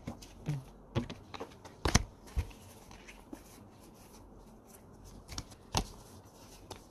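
Tarot cards being handled and laid on a tabletop: scattered light clicks and taps, the sharpest about two seconds in and another a little before the end.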